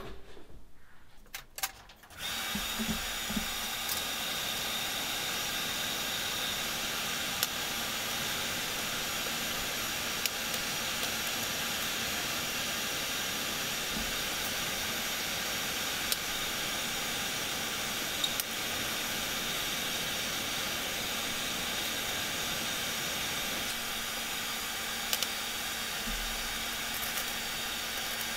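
Coal forge's electric air blower switched on about two seconds in and running steadily, blowing air into the fire to bring it up to heat. A few faint clicks sound over it.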